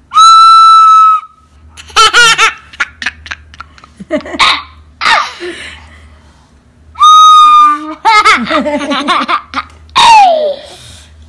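Plastic toy recorder blown by a toddler: a steady, shrill held note of about a second right at the start and another about seven seconds in. In between come several bursts of a toddler's laughter.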